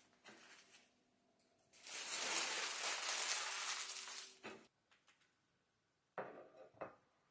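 Bread packaging crinkling and rustling as it is handled: one long rustle of about two and a half seconds, then two short rustles near the end.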